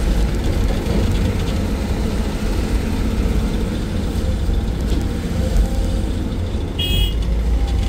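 Excavator's diesel engine running steadily while working, heard from the operator's cab. A brief high-pitched tone sounds about seven seconds in.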